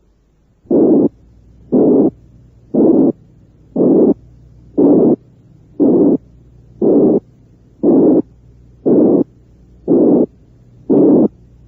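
Simulated high-pitched blowing heart murmur: a narrow band of noise centred near 360 cycles per second, heard as short hisses about once a second. It resembles the murmur of mitral or aortic regurgitation when not too intense.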